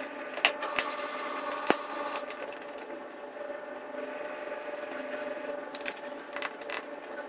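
Craft knife blade cutting down the plastic plungers of small tactile push-button switches: sharp clicks and snaps of the plastic with light scraping. There are several clicks in the first two seconds and another cluster near the end.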